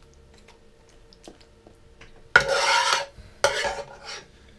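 A spoon scraping the inside of a cooking pot twice, rasping, about two and a half seconds in and again about a second later, while the bean-and-meat mixture is scooped out.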